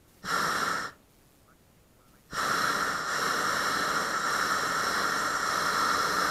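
Hot air balloon's propane burner firing: a short blast of about half a second, then, after a pause of about a second and a half, a long steady burn.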